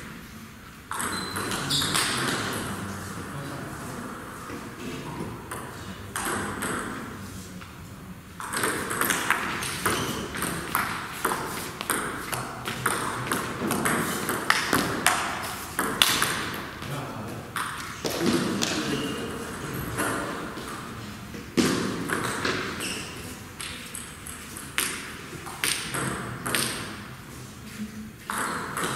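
Table tennis rallies: the celluloid-type ball clicking off the players' paddles and bouncing on the table in quick runs of sharp pings, with people's voices in the hall between points.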